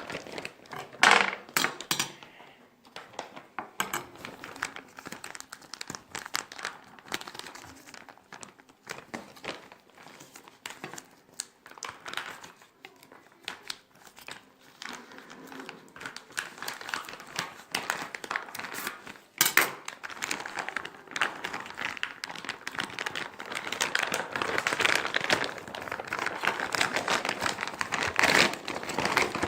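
Packaging of a Pyraminx puzzle being handled and opened: irregular crinkling and rustling with scattered clicks, a sharp snap about two-thirds of the way through, and busier, louder crinkling near the end.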